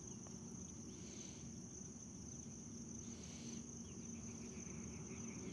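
Faint steady high chirring of crickets in the background, with two soft rustles of a part and cloth being handled, about one and three seconds in.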